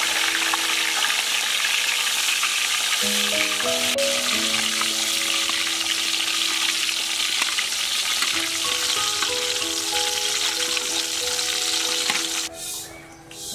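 A large whole fish deep-frying in hot oil in a wok, sizzling steadily, until the sizzle cuts off abruptly near the end. A simple background melody plays underneath.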